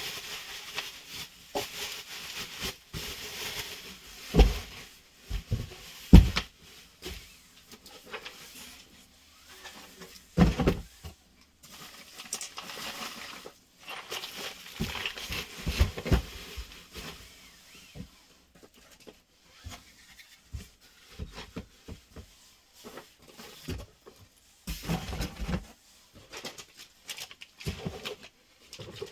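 Cardboard boxes and packaging being handled: irregular rustling and clicking, with a few sharp thumps as parts and boxes are set down.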